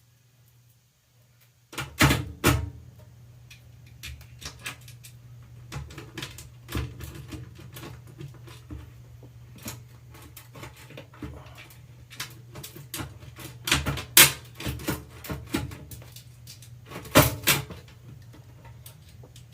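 Hands working on e-bike parts and tools: irregular clicks and knocks, with louder knocks about 2, 14 and 17 seconds in, over a steady low hum that starts about a second and a half in.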